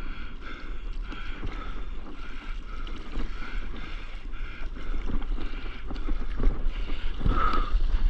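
Water lapping and splashing around a stand-up paddleboard under paddle strokes, with wind rumbling on the microphone. Over the last few seconds it gets louder and splashier as the board picks up speed on a wave and throws spray off its nose.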